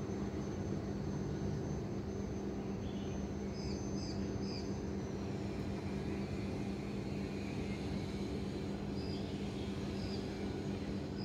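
Steady low city drone with a constant hum, heard from a rooftop. A few short high chirps come in a quick group of three a few seconds in and again near the end.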